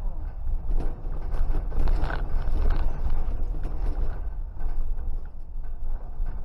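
Road and engine noise of a car driving at city speed, heard from inside the cabin through a dashcam: a steady low rumble with a few light knocks and rattles.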